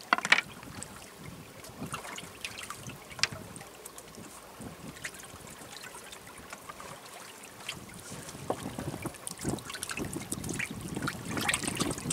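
River water splashing and trickling against the side of a boat, with scattered small knocks and clicks. A sharp knock comes just after the start and another about three seconds in, and the splashing grows busier over the last four seconds.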